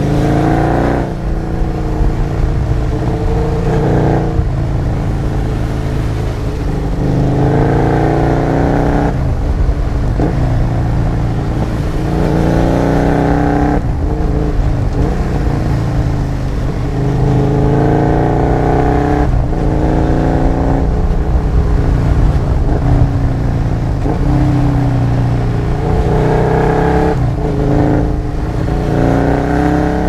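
Husqvarna Nuda 900's parallel-twin engine heard from on board while riding, revving up in pitch and easing off again and again as the rider accelerates and backs off, over a steady rush of wind and road noise.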